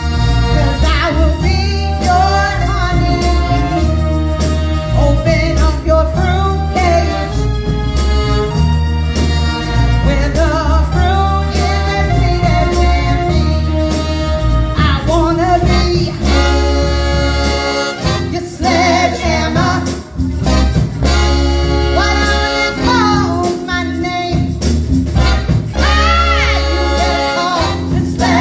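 Live band playing a song, with a lead vocal sung over electric bass and drums.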